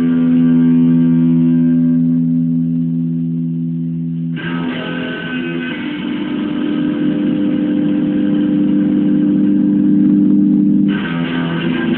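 Amplified guitar playing long sustained chords. One chord rings for about four seconds, a new one is struck and held for about six more, and the chord changes again near the end.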